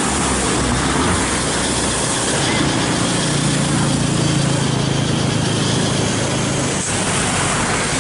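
Road traffic on a wet road: a motorcycle engine hums past close by around the middle, over a steady hiss.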